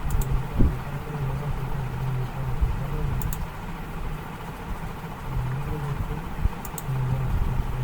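A steady low hum with a few short, sharp computer-mouse clicks, one near the start, one about three seconds in and a double click near the end.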